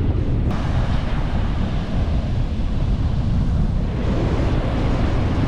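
Strong wind buffeting the microphone with a heavy low rumble, over the wash of rough Atlantic surf breaking on the beach.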